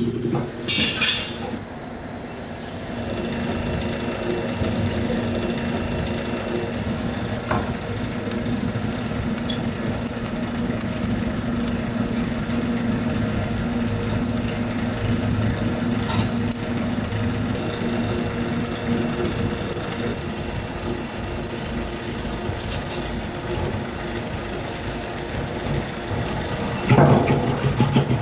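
Snack-factory machinery running with a steady hum, a short hiss about a second in, and a few light clinks.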